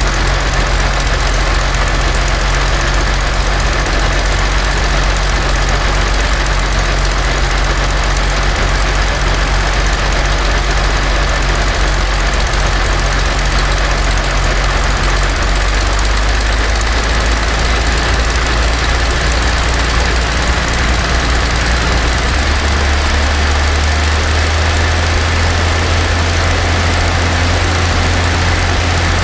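Rolls-Royce Merlin XX supercharged V12 aero engine running loud and steady on a test stand, turning its propeller, on its first run after a rebuild. About three-quarters of the way through, the engine note steps up to a higher speed and holds there.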